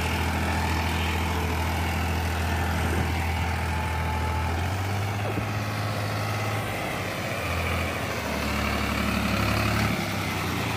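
New Holland 3630 tractor's diesel engine running steadily under load while pulling a land leveller, its note shifting a little about halfway through. It runs evenly after its fuel injection pump was repaired and reset.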